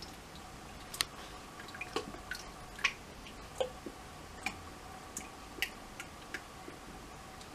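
Water dripping and plinking into a tank as rubber squirt toys are dipped and lifted at the surface: about a dozen scattered drips, over a faint steady hum.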